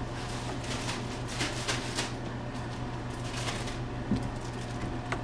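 A spatula stirring and scraping thick sloppy joe meat sauce in a nonstick frying pan, a few short scrapes and clicks over a steady low hum.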